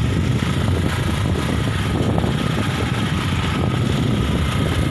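Wind buffeting the phone's microphone on a moving scooter, a loud steady rush and rumble with road noise underneath.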